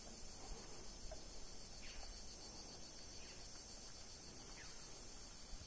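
Faint, steady high-pitched chirring of insects, a continuous pulsing trill, with a few short faint high chirps over it.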